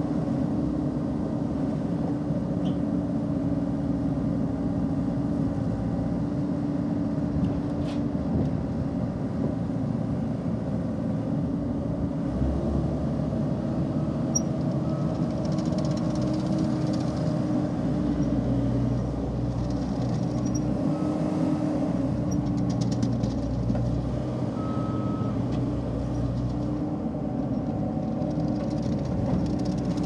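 ASV PT-100 compact track loader's diesel engine running steadily as the machine is operated. The engine note steps up about twelve seconds in, and a heavier low rumble comes and goes in the second half.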